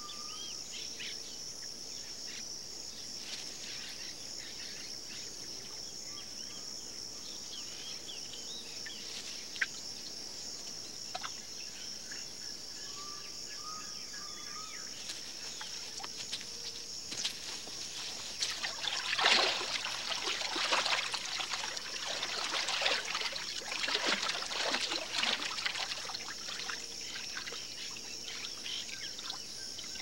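Steady high-pitched chorus of insects, with occasional short bird chirps. About two-thirds of the way through comes a stretch of louder, irregular noises.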